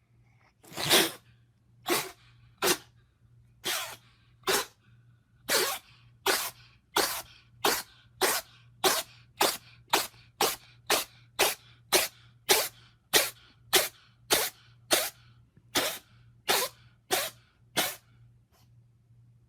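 A cat sneezing about thirty times in a row, short sharp sneezes at first a second or so apart, then coming faster at about two a second until they stop near the end.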